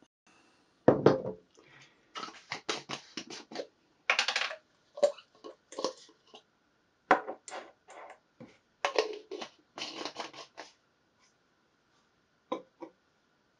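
Objects being handled on a wooden tabletop. About a second in there is a heavy knock as the steel transport box is set down, followed by a run of scrapes, clicks and rattles as a plastic screw-top bottle is handled and a small metal source holder is taken out and stood on the table.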